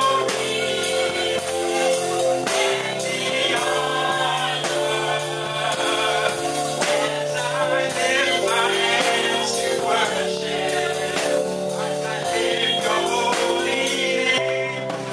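Gospel music with singing over sustained keyboard-like chords and a steady beat.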